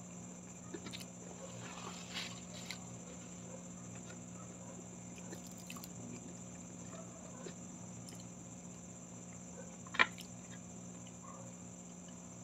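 Close-miked eating by hand: quiet chewing and mouth sounds with fingers picking at rice and fried milkfish, small scattered clicks throughout, and one sharp tap about ten seconds in that stands out as the loudest sound. A faint steady hum runs underneath.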